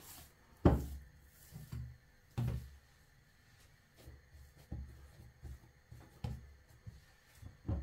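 Hands handling mandazi dough, taking it from a bowl and pressing it flat on a countertop: a loud thud under a second in, another about two seconds later, then a run of softer knocks and pats as the dough is pushed down.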